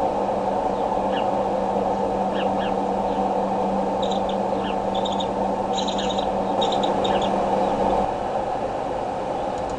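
Bald eagle hatchlings peeping: short high chirps, a few single ones early and then quick clusters in the middle, over a steady rushing background and a low hum that cuts off about eight seconds in.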